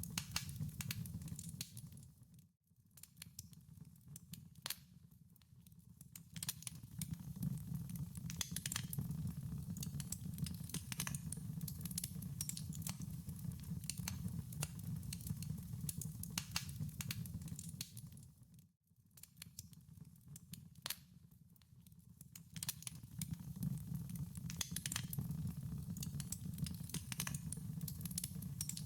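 Wood fire in a fireplace crackling, with frequent sharp pops and snaps over a steady low rumble of burning. Twice, about two and a half seconds in and again near nineteen seconds, the sound dips almost to nothing and swells back.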